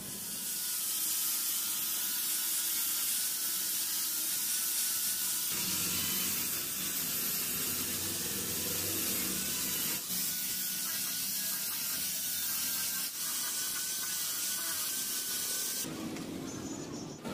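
Handheld electric power tool with a yellow sanding disc, sanding a wooden knife handle: a steady hiss of abrasive on wood over a slightly wavering motor whine. The sound stops near the end.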